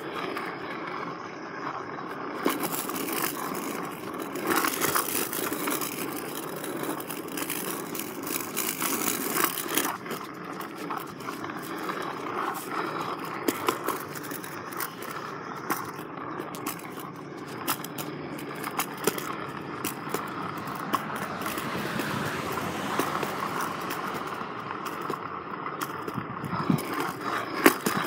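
RipStik caster board rolling over a concrete sidewalk: a continuous rough rolling rumble with many small clicks and rattles.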